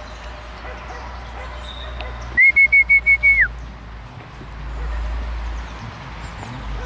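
A loud, high whistle, warbling in about six quick pulses on one pitch for about a second and ending in a downward slide. A low wind rumble on the microphone runs underneath.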